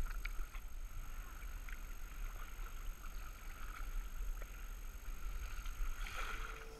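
Packraft being paddled: water splashing and dripping off the paddle blades in small irregular splashes, with a steady low rumble underneath. A louder splash comes about six seconds in.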